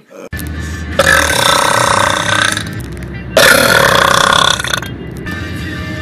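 A man belching loudly twice, each long burp lasting about a second and a half, over music.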